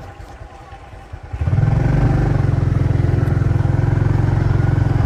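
Motorcycle engine running steadily under the rider, getting louder about a second and a half in and then holding an even, low pulsing note.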